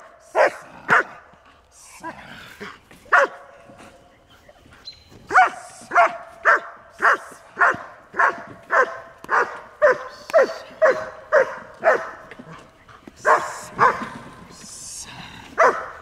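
German Shepherd Dog barking during bitework training, in runs of sharp barks about two a second with short pauses between the runs.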